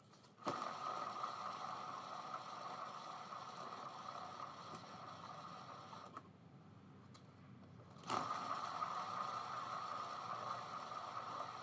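Cake-decorating turntable (lazy susan) spinning under a painted canvas, its bearing whirring steadily. It starts about half a second in, dies away around six seconds, and is set spinning again about two seconds later.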